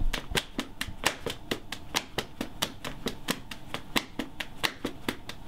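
A quick, even rhythm of hand claps and taps, roughly four to five strokes a second, with some strokes louder than others.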